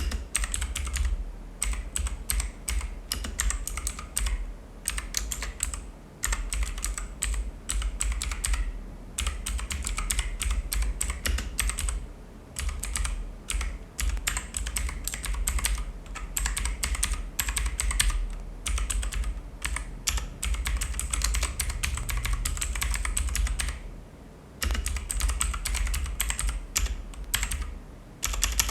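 Typing on an Onikuma Haru mechanical keyboard with blue switches, which are clicky: fast runs of keystrokes broken by short pauses, the longest about 24 seconds in.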